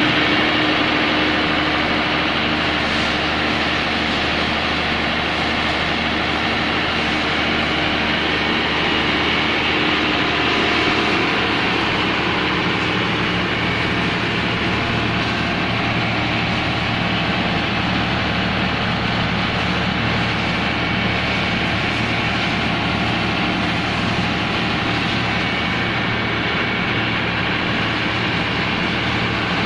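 Komatsu SA6D110 six-cylinder diesel engine of a 130 kVA open-frame generator set running steadily on test, its low tone shifting slightly about twelve seconds in.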